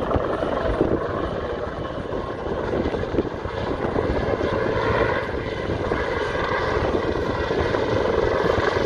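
Royal Navy AW159 Wildcat helicopter flying a display: its twin turboshaft engines and main rotor running steadily, with a rapid beat from the blades.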